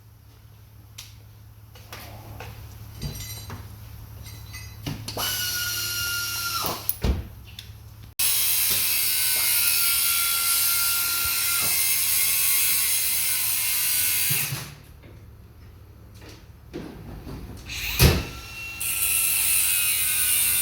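A power tool runs in several bursts with a steady whine over a hiss; the longest burst lasts about six seconds. A sharp knock comes near the end.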